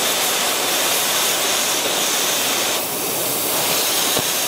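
Oxyacetylene torch with a washing tip, its cutting-oxygen jet running with a steady rushing hiss as it washes molten steel and slag off a weld backing strip. The hiss thins briefly about three seconds in.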